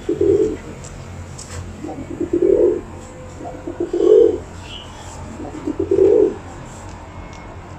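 Pet domestic pigeon cooing: four low coos, about two seconds apart.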